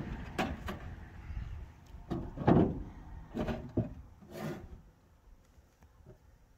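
A series of knocks and scrapes, about half a dozen in four seconds and loudest about two and a half seconds in, as gear is shifted and handled on a truck bed with wooden sides. After that only a few faint clicks.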